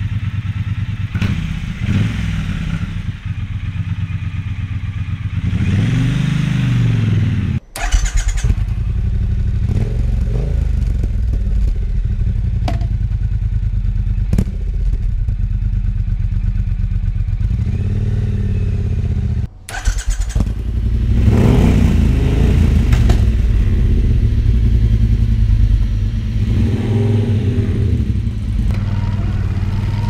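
Triumph Bonneville T120 1200 cc parallel-twin idling with a blip of the throttle through its stock mufflers, then, after a cut, idling and revving once through British Customs Sleeper Pro slip-on mufflers. From about 20 s in it is under way on the road, louder, with the engine note rising and falling.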